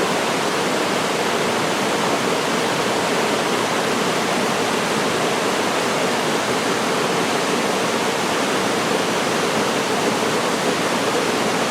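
Waterfall pouring steadily into a mountain stream: a dense, unbroken rush of falling water.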